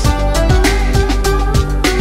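Background music: an upbeat instrumental track with a regular drum beat of about four hits a second under plucked, guitar-like notes.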